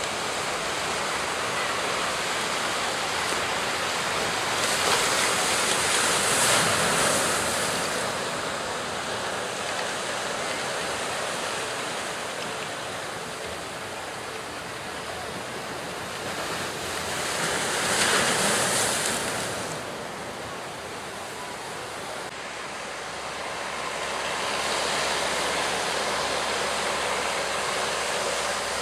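Sea waves breaking and rushing steadily, swelling louder twice, about six and eighteen seconds in.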